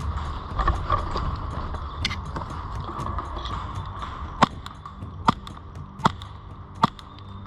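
Airsoft gun fired in single shots: sharp cracks a little under a second apart, starting about four seconds in, with softer clicks and rustling before them.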